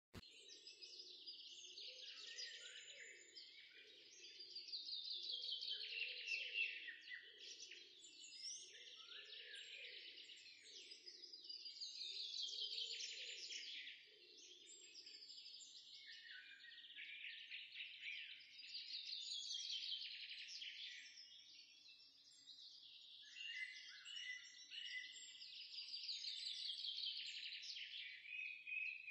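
Faint birdsong: quick chirping calls in phrases that come back about every six to seven seconds.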